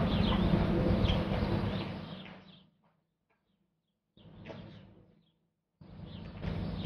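Outdoor background noise with birds chirping now and then. The sound fades out to dead silence about two and a half seconds in, comes back briefly, drops out again, and returns near the end.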